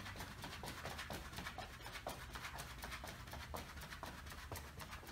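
Quick, light footfalls of an athlete doing butt kicks on artificial turf, a steady rhythm of about four to five soft foot strikes a second.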